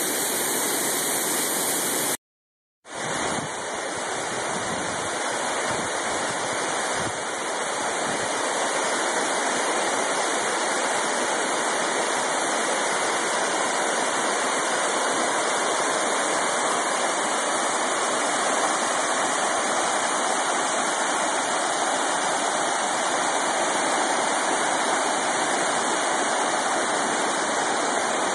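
Waterfall rushing in a steady, even roar of falling water. About two seconds in it cuts off to silence for under a second, then a second waterfall's steady rush takes over.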